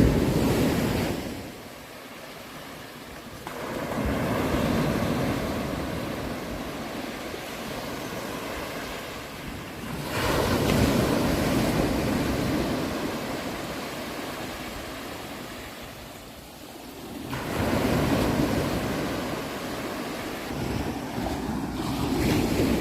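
Sea waves breaking in slow surges, a new wave every five to seven seconds, each one swelling and then washing away.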